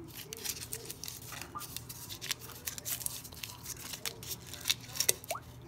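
Foil wrapper of a beef bouillon cube crinkling and tearing as it is unwrapped by hand, in quick irregular crackles.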